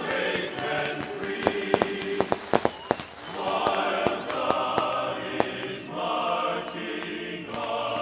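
Fireworks popping and crackling over music with sustained singing voices, the sharp cracks coming thickest about two seconds in.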